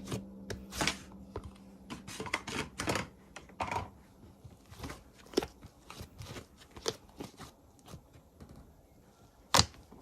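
Slime being squished, stretched and poked by hand, making irregular sticky clicks and crackling pops, with two sharp pops near the end.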